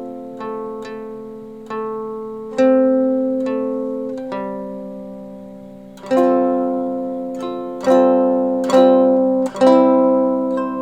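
Ukulele played through a small Acorn Amps Biz Card amplifier into a roughly 60-year-old 4-by-7-inch oval speaker in a homemade cabinet. A series of picked and strummed chords, each ringing out and slowly fading before the next.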